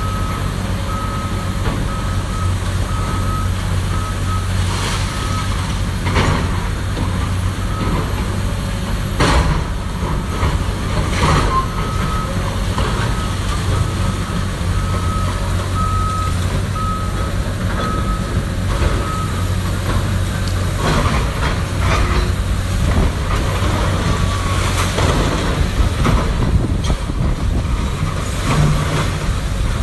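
Demolition machinery at work: a heavy diesel engine running steadily while a reversing alarm beeps on and off, stopping about two-thirds of the way through. Scattered knocks and crashes come from debris being broken and moved.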